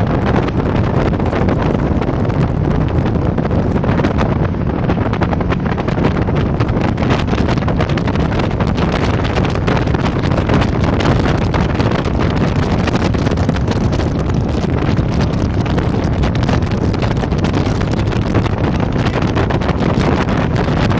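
Open speedboat running fast, its engine and rushing water mixed under heavy wind buffeting on the microphone. The noise stays loud and steady throughout.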